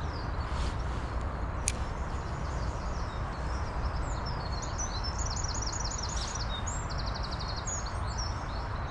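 Steady rush of river water, with a small bird singing quick repeated notes and a fast trill from about four seconds in. A single sharp click comes near two seconds in.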